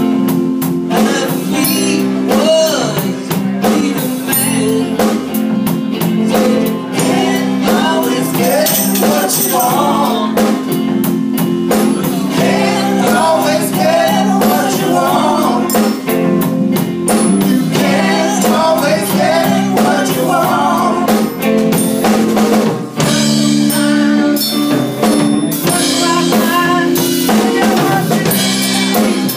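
Live band playing with drum kit, conga drums, electric bass and electric guitars, and voices singing at the microphones over the band.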